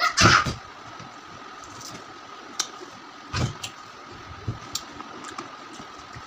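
Handling sounds of hands on a plastic tray of hog plums and a plastic bowl of salt and chilli: scattered light clicks and taps, a short loud noise at the start and a dull thump about three and a half seconds in, over a steady thin tone.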